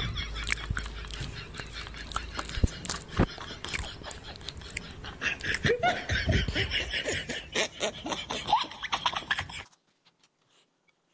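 A person laughing and chuckling, with scattered short clicks and knocks. It all cuts off suddenly near the end.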